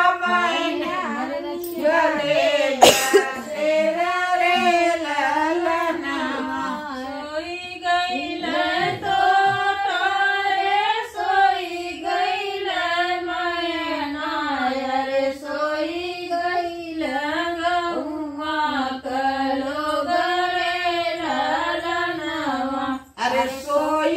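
Women singing a traditional Indian wedding folk song (shaadi ke geet) together in unison, one continuous wavering melody without pause. A short knock sounds about three seconds in.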